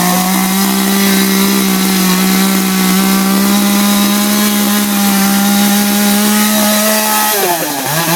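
Two-stroke chainsaw held at full throttle for about seven seconds, dropping back near the end and then revved briefly again.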